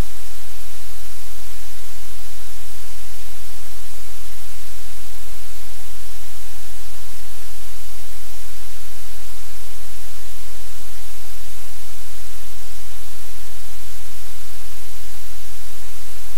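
Loud, steady hiss like static, with a low hum beneath it and nothing else standing out.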